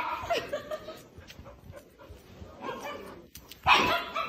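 Small fluffy dog making playful barks and whines as it grabs at a person's hair, with a loud call near the end. A person's voice is mixed in.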